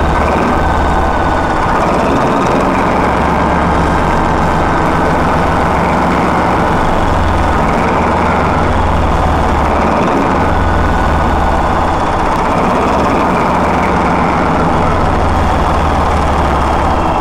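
The Paxman 6YJXL V6 diesel engine of Class 14 diesel-hydraulic locomotive D9531 running steadily, a deep throb with a faint whine above it that swells gently every couple of seconds. This is the locomotive's newly fitted replacement power unit on its first run after overhaul.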